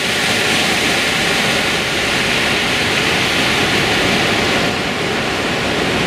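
Loud, steady rushing of white water from the Lehner waterfall's stream cascading down a steep stone channel.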